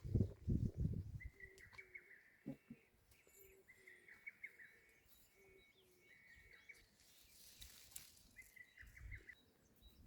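A bird singing faintly in repeated short chirping phrases, each about a second long with brief pauses between, and some low thumps of wind or handling on the microphone in the first second.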